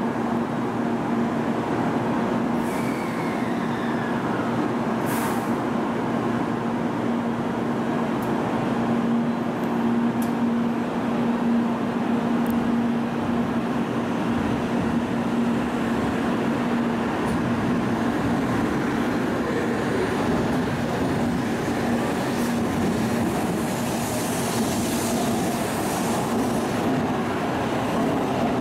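N700-series Shinkansen train pulling out of the platform and gathering speed, the cars rolling past with a steady low hum over an even rushing noise.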